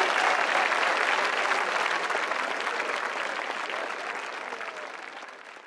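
Crowd applauding, a dense patter of many hands clapping that fades out steadily to silence.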